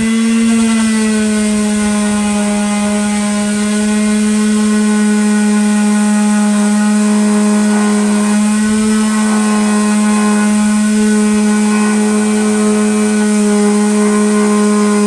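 Electric power sander switching on, its motor spinning up in a quick rising whine and then running at a steady high speed.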